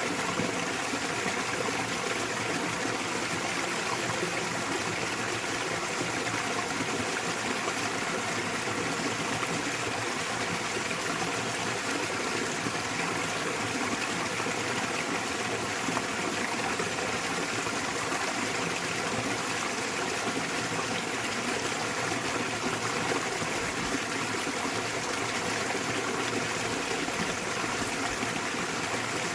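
Small waterfall splashing into a mountain stream, a steady rush of water that never changes.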